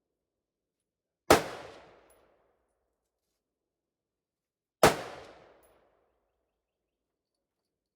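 Two single gunshots from an AR pistol, about three and a half seconds apart, each one sharp and loud and ringing out for about a second.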